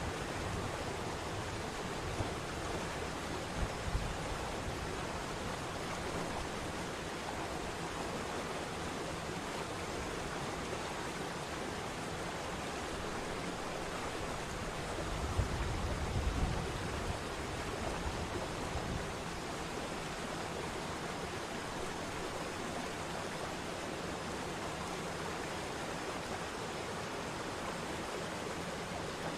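Waterfall water rushing in a steady, even roar. A low rumble swells briefly about four seconds in and again around fifteen to seventeen seconds.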